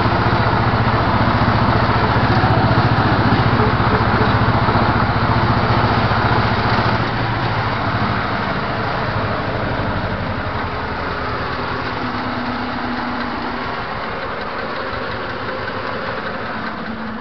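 Ursus C-330 tractor's two-cylinder diesel engine running steadily, heard loud from inside the cab while mowing a meadow. The sound drops somewhat about seven seconds in and then fades gradually.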